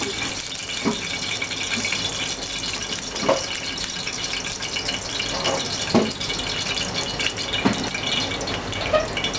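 Food sizzling steadily in hot oil in a pan, with a few short knocks of a utensil against the pan.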